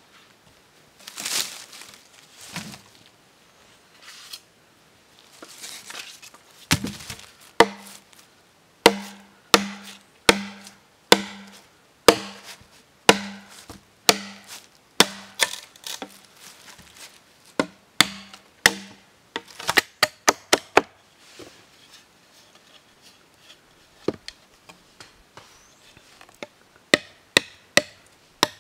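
Large knife chopping a green bamboo pole laid on a log: a steady series of strikes, about one every two-thirds of a second, each with a short hollow ring from the bamboo. Later the strikes come as quicker, lighter taps in small clusters.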